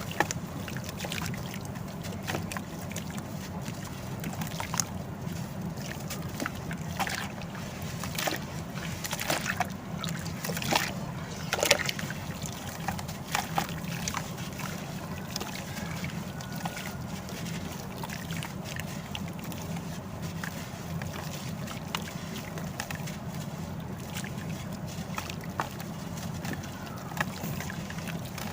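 Dried sand-cement pieces being crumbled and dipped in water: scattered crunchy cracks over sloshing, trickling water, with a steady low hum underneath.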